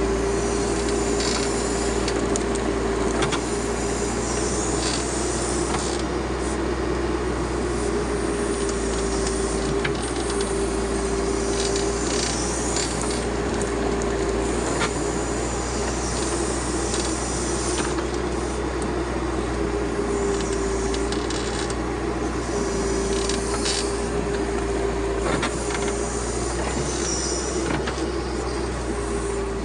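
Backhoe loader's diesel engine running steadily with a constant whine, under rough scraping and rasping noise as it works fill soil.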